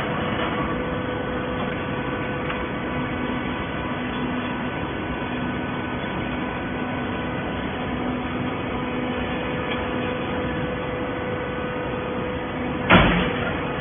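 Industrial hydraulic horizontal baler running: a steady machine hum with a constant whine. A single loud clunk comes near the end.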